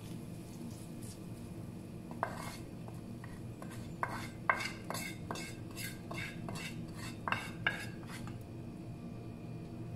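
Wooden spatula scraping and knocking against a frying pan while fried onions are scraped out of it: a run of quick clicks and scrapes from about two seconds in to about eight seconds. A steady low hum runs underneath.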